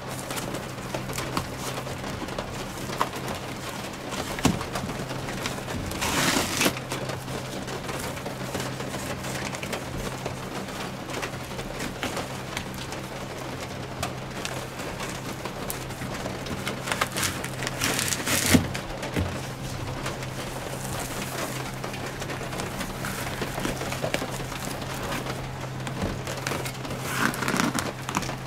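Rustling and crinkling of a foil-faced foam insulation sheet being handled and fitted against the van's metal wall, with scattered small clicks and two longer, louder crinkles about six and seventeen seconds in. A steady low hum runs underneath.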